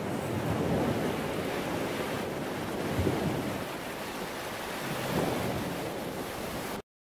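Ocean surf washing up on a beach, with swells as waves come in about a second, three seconds and five seconds in; the sound cuts off abruptly near the end.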